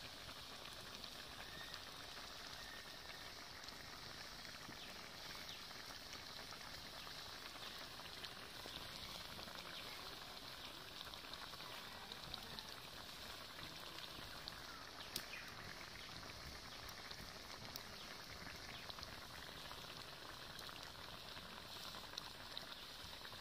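Fish curry simmering in a steel kadai over a wood fire on a clay stove: a faint, steady bubbling hiss with small pops scattered through it.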